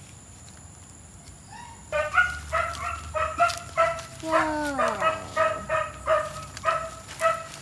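An animal calling repeatedly, starting about two seconds in: a run of short calls at a steady pitch, roughly two a second, with one long falling call near the middle.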